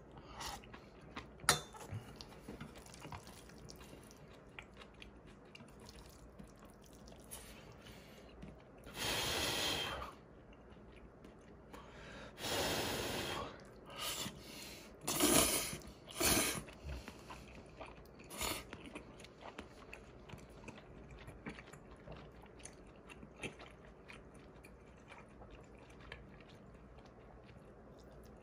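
A person eating instant black-bean noodles and cold seaweed soup: close-up chewing, with a few loud slurps of about a second each in the middle. Light clicks of chopsticks and a metal spoon against stainless steel bowls come through now and then.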